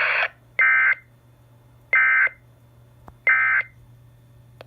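NOAA Weather Radio Emergency Alert System end-of-message data bursts: three short, identical, harsh two-tone digital squawks, each about a third of a second long and a little over a second apart, signalling the end of the alert message. A faint low hum sits underneath.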